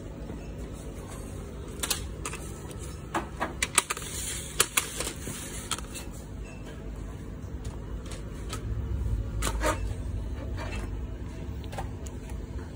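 Sharp clicks and clacks of tin cans and a plastic shopping basket being handled, clustered about two to five seconds in and once more near ten seconds, over a low steady store hum.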